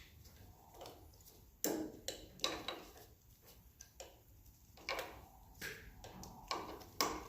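Irregular light clicks and taps of screws and the cover plate being handled and fitted on a G1021 thickness planer, as the screws are lined up with the gasket holes.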